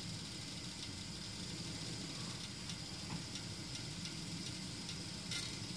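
Small canister gas stove burning steadily with a low rumble and hiss, heating water in a sealed aluminium can that is starting to boil, with a few faint ticks.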